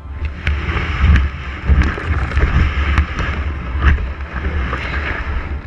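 Rustling and scraping as a plastic kayak is rocked and shifted in long grass, with scattered knocks on the hull, picked up loudly through a camera fixed to the kayak's bow.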